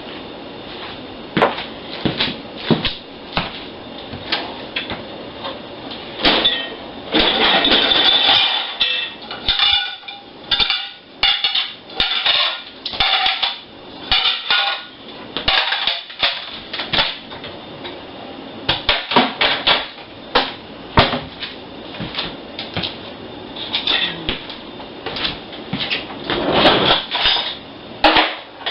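Irregular knocking and clattering of hard objects: many sharp strikes at uneven intervals, some with a short ringing tone.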